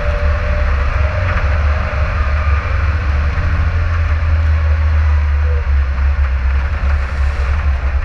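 Off-road vehicle driving along a rough, muddy dirt track: a loud, steady low rumble of engine and road noise, heard from on board the vehicle.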